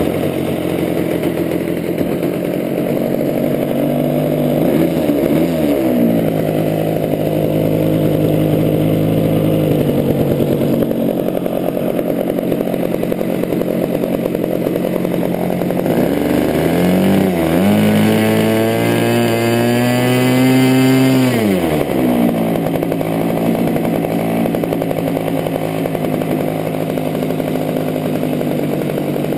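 Internal-combustion engine of a radio-control Ultimate biplane running at idle. It is revved up twice, each time rising in pitch, holding for a few seconds, then dropping back to idle.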